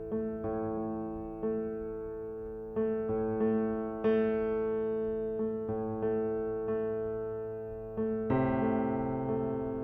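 Slow piano music: chords struck about once a second, each ringing and fading before the next, with a louder, fuller chord near the end.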